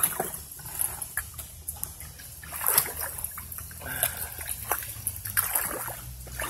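Irregular rustling, scuffing and small knocks of someone moving through wet, storm-littered brush and brushing past a plastic tarp, with a few splashy steps.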